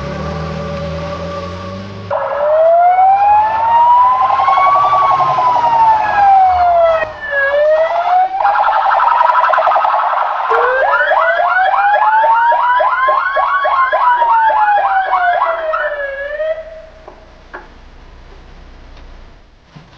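Emergency-vehicle siren sounding loudly in a slow wail that rises and falls about every five seconds, with a fast warbling yelp joining it midway. It cuts out about three quarters of the way through. A low engine rumble is heard in the first two seconds before it.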